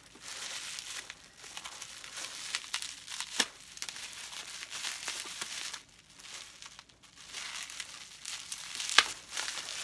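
Clear plastic wrapping crinkling and rustling as a small wrapped item is handled and cut open, with two sharp clicks, one about three and a half seconds in and a louder one near the end.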